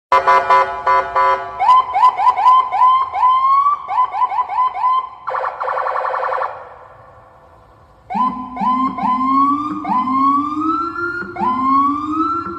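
Police siren switching through its tones: a rapid warble at the start, then quick rising chirps, a brief harsh buzzing tone about five seconds in, a short lull, and longer rising whoops from about eight seconds on.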